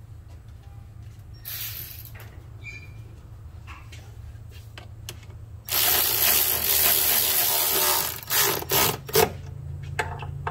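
Milwaukee cordless electric ratchet running a bolt in on a rear differential brace: one continuous run of about two and a half seconds, then three short blips of the trigger.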